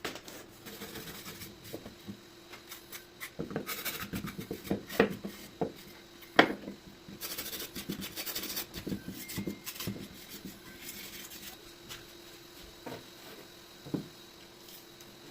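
Wood being handled and worked by hand: scattered light knocks and clacks with short scraping and rubbing strokes, the sharpest knocks about five and six seconds in.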